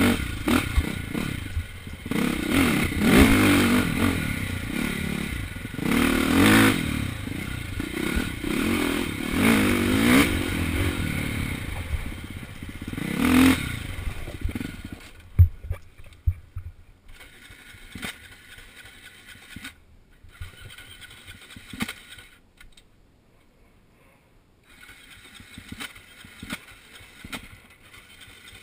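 KTM dirt bike engine revving up and down repeatedly as it rides a trail, with clatter and scraping of the bike over rough ground. About halfway through the engine sound drops away, leaving only scattered clicks and knocks, nearly quiet for a moment near the end.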